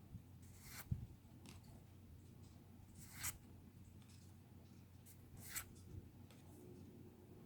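Faint, short swishes and rustles of Pokémon trading cards being handled and slid against each other, a few times with pauses between, over quiet room tone.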